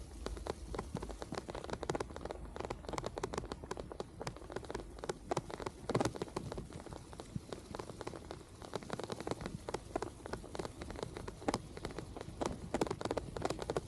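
Rain falling, with drops striking close to the microphone as dense, irregular ticks over a steady low rush.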